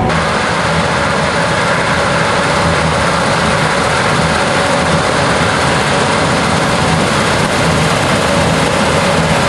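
Gleaner S77 combine harvester running steadily while cutting wheat: a loud, even din of engine and threshing machinery with a faint steady whine.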